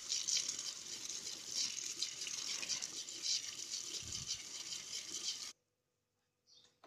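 Tap water pouring onto papaya leaves in a plastic colander: a steady splashing rush that cuts off suddenly about five and a half seconds in, leaving near silence.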